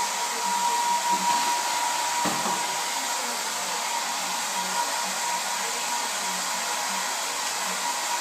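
Handheld hair dryer running steadily: an even blowing hiss with a thin steady whine, and a faint knock about two seconds in.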